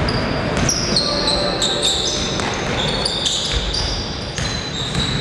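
Basketball bouncing on a hall floor, with repeated knocks, and short high squeaks typical of sneakers on the court, over the murmur of voices in a large hall.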